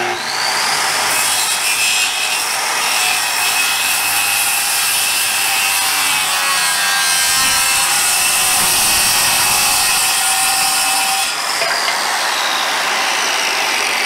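Milwaukee corded circular saw starting up and cutting at a steep angle across a clamped wooden board, a steady loud whine with rough cutting noise for about eleven seconds. About three seconds before the end the blade clears the wood and the motor runs on without load.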